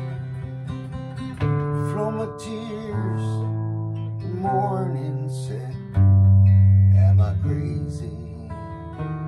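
Acoustic guitar played in sustained chords that change every second or two, with a louder low chord ringing about six seconds in.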